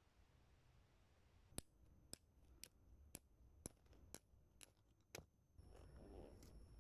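Flint struck against a steel fire striker over tinder to throw sparks: about eight faint, sharp scraping clicks, roughly two a second, that stop about five seconds in.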